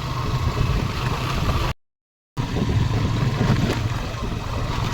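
A motor vehicle's engine running steadily under load while climbing a steep hill road. The sound cuts out completely for about half a second near the middle.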